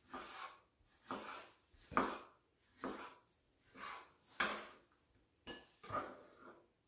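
Kitchen knife cutting raw tuna into cubes, the blade coming down onto a wooden cutting board in a run of about eight separate strokes, roughly one a second.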